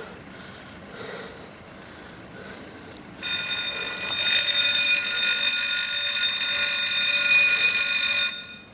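Bridge warning bell ringing steadily for about five seconds, the signal that the bridge is about to move. It starts about three seconds in, gets louder a second later, and stops abruptly near the end.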